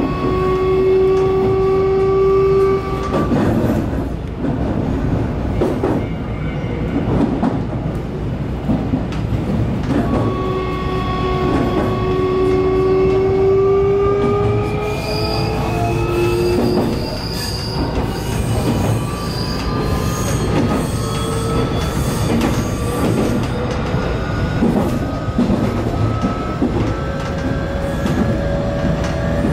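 Nankai 8300 series electric train running, with a steady rumble, repeated clicks from the rails and a whine that rises slowly in pitch. The whine drops out for several seconds a few seconds in and returns.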